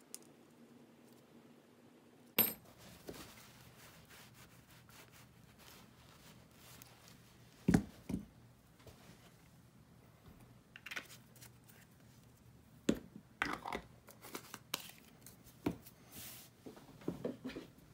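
Scattered clicks and knocks of metal Allen keys and regulator parts being handled and set down on a work mat, with the loudest knock about 8 seconds in and a run of small clicks near the end.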